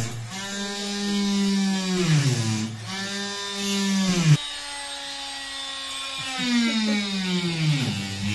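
Electric motor of a handheld corded power tool running with a high whine, slowing and picking up again several times, about four times in all, as it is worked against the bus's metal framing.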